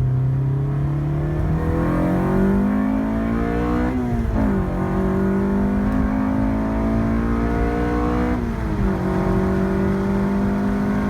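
Car engine accelerating, its pitch climbing through the gears, with a sharp drop at an upshift about four seconds in and another at about eight and a half seconds, then pulling on more evenly.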